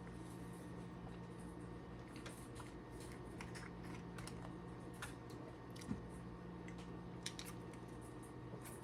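Faint scattered clicks and light taps, a couple of them a little sharper, over a steady low hum.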